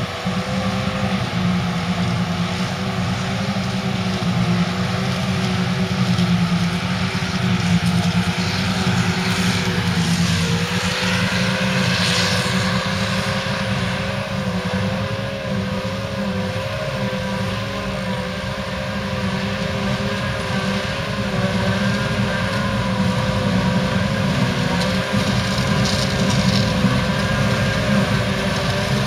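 Heavy diesel farm machinery at silage work, running steadily with a constant whine over the engine note. The pitch dips briefly about ten seconds in, then comes back up.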